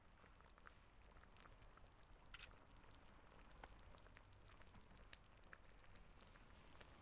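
Near silence: faint background hush with scattered small clicks and ticks.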